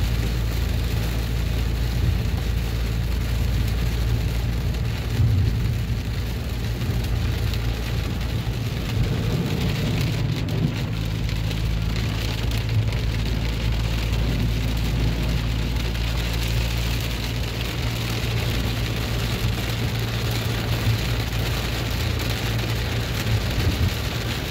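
Heavy rain pelting a moving car's roof and windshield, heard from inside the cabin, over a steady low hum of the engine and tyres on the wet road.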